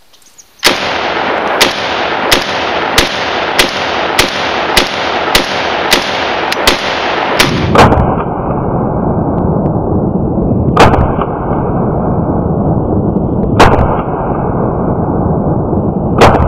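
Shots from a home-built Hungarian AK-63D rifle in 7.62×39mm: about a dozen rapid shots, roughly two a second, then, after a duller stretch begins about 8 s in, three single shots a few seconds apart. A loud steady rushing noise runs under the shots.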